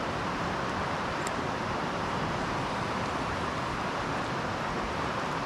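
Steady rushing noise, even and unchanging, with a couple of faint ticks about a second in.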